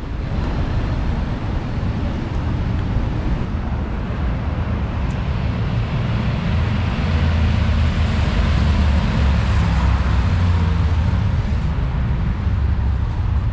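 City street traffic: a steady rumble of passing vehicles and tyre noise, growing louder about seven seconds in.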